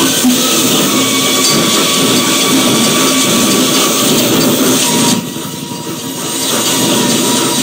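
Harsh, dense electronic noise music played live by a duo on electronics. It drops away suddenly about five seconds in and swells back up over the next second or so.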